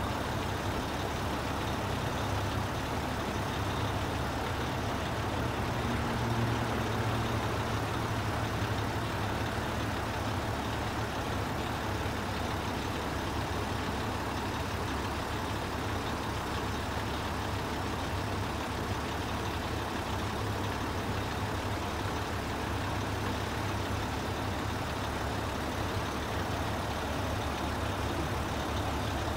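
Heavy diesel construction machinery running steadily, a low even engine drone that swells slightly about six seconds in.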